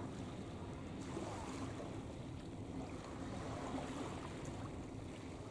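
Steady outdoor wind-and-water ambience: a low rush of wind on the microphone with water lapping, and a faint steady low hum underneath.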